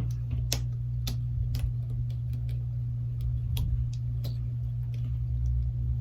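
Scattered small sharp clicks and taps of a smartphone's internal parts and hand tools as its motherboard is seated in the frame, over a steady low hum.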